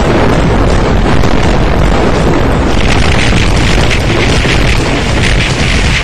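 Loud, continuous rumbling blast noise, an explosion-style sound effect, with a higher hiss joining about three seconds in.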